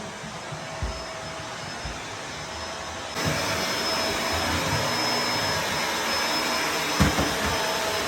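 Performance Lift-Away upright vacuum cleaner running with a steady motor whine. It gets louder about three seconds in, with a few low bumps from the nozzle on the floor.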